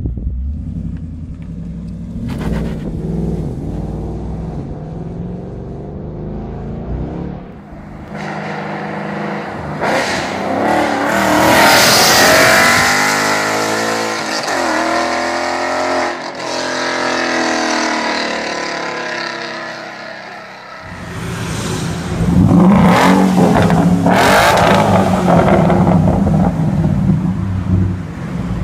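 A 2015 Ford Mustang GT's 5.0-litre V8 exhaust, first running low and steady, then accelerating about eight seconds in with the pitch climbing. The pitch then falls away again, and from about twenty-one seconds in the engine runs loud again with sharp revs.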